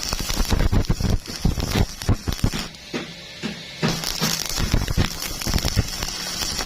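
Stick-welding arc crackling and sputtering irregularly with a hiss, easing briefly about three seconds in.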